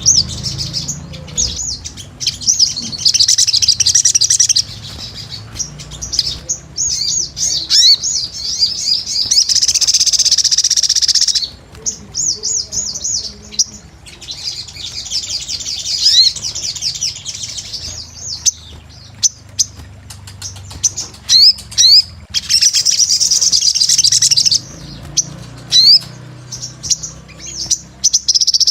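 Sogon, a small sunbird, singing a vigorous, very high-pitched song of rapid chirps and trills in repeated bouts of a few seconds each, with short pauses between them.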